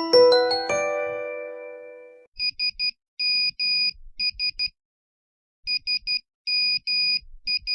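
A short melody of bell-like electronic notes that ring out and fade, then the classic Nokia SMS message tone: sharp electronic beeps spelling 'SMS' in Morse code (three short, two long, three short), played twice.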